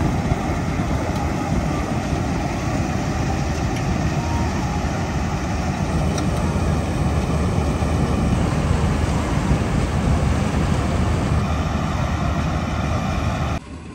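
Farm machinery engine running steadily, loud and low-pitched, breaking off suddenly near the end.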